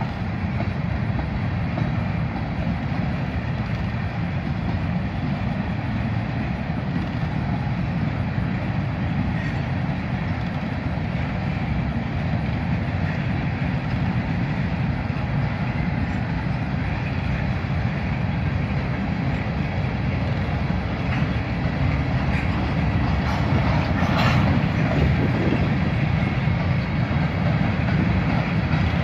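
Freight train of covered hopper cars rolling past, a steady rumble of steel wheels on the rails, growing a little louder near the end.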